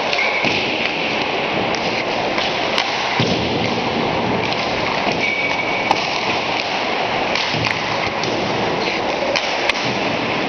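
Ice hockey warm-up: a steady clatter of skates and pucks on the ice, with a few sharp cracks of pucks being shot and striking sticks, pads or boards.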